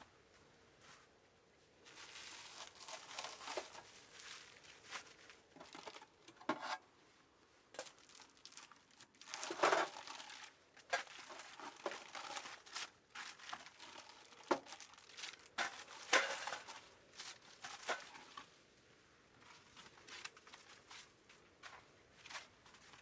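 Irregular rustling and crinkling handling noise with sharp clicks, coming in patches and loudest about ten and sixteen seconds in.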